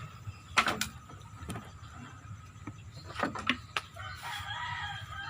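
A rooster crowing from about four seconds in, after a few sharp clicks and knocks.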